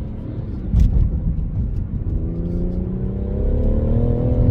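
BMW M140i's turbocharged 3.0-litre straight-six, fitted with an MST aftermarket intake, accelerating hard under full throttle, heard from inside the cabin. The engine note rises, breaks with a thump about a second in, then climbs again and cuts off suddenly at the end.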